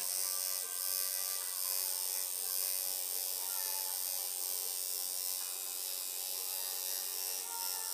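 Electric tattoo machine buzzing steadily, its needle working into skin.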